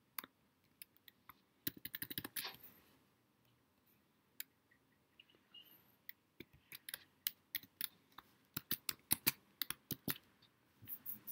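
Computer keyboard being typed on in quick bursts of keystrokes, with short pauses between the runs.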